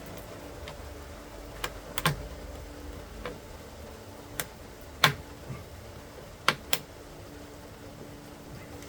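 Scattered sharp clicks and knocks of hard objects being handled, about eight in all, in ones and close pairs, the loudest about five seconds in.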